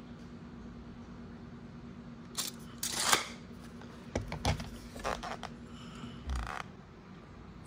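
Handling clatter: light metallic clinks as a steel tape measure comes off a power adapter's metal prongs, then a few knocks as the plastic adapter and the switch's metal case are handled on a table. The loudest clatter comes about three seconds in.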